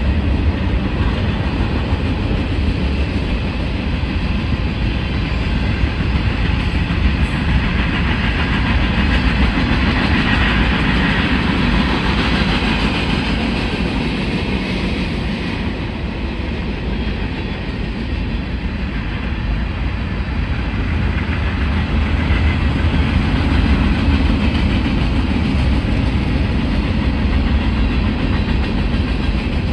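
Mixed freight train cars rolling steadily past, with a continuous noise of wheels running on the rails.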